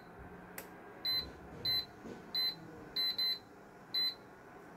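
Induction cooktop's control panel beeping as its buttons are pressed to switch it on: six short high beeps, two of them close together, with a single faint click about half a second in.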